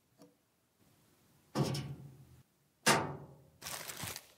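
Two hard thumps about a second and a half apart, each with a short ringing decay, the second louder. Then near the end, a rustle of a plastic bag as a plastic cup scoops into glass-bead blasting media.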